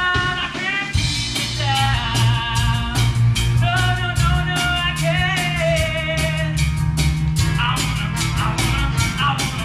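A male voice singing a musical-theatre rock number over band accompaniment with a steady drum-kit beat and bass.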